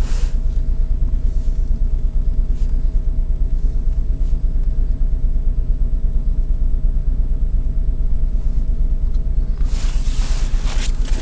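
Car engine idling steadily minutes after a cold start in sub-zero cold, heard from inside the cabin: a low, rapidly pulsing rumble with a faint steady whine. A brief rush of noise comes near the start and again near the end.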